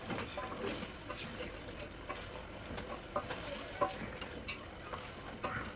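Meat being stirred in its sauce in a cooking pot: scattered knocks and scrapes of the stirring utensil against the pot over a light sizzle, with a couple of louder knocks past the middle.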